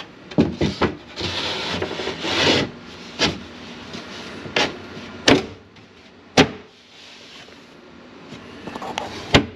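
Wood scraping as a wooden piece is pushed and slid into place, then several sharp knocks of wood on wood as it is seated, the loudest near the end.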